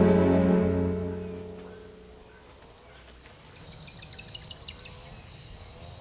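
Soft background music fading out over the first two seconds, then a steady high-pitched insect trill from about three seconds in.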